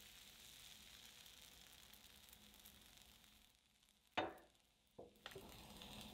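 Chocolate crepe batter faintly sizzling in a nonstick pan over a low gas flame. About four seconds in the sizzle drops away and a single sharp knock sounds, followed about a second later by two lighter knocks, before the faint sizzle returns.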